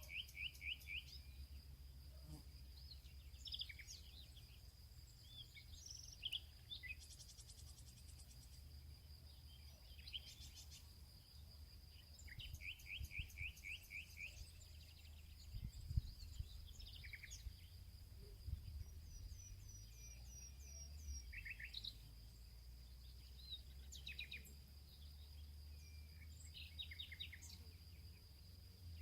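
Birds chirping and calling, with short trills and repeated quick notes scattered throughout. Underneath runs a steady high-pitched whine and a low hum.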